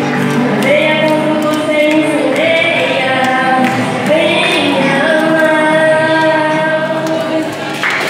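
A girl singing long held notes into a microphone, live, accompanied by two acoustic guitars.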